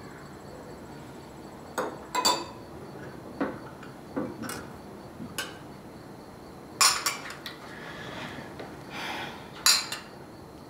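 Tableware clinking: spoons and bowls knocking together in about a dozen light, irregular clinks, as if food or soup is being served or eaten.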